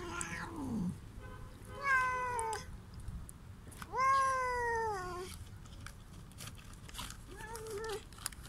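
Cat meowing four times, with the longest and loudest call about four seconds in.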